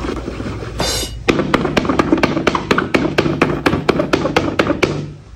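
A pen tip stabbing holes through a paper picture card: a quick run of sharp taps, several a second, starting about a second and a half in, over background music.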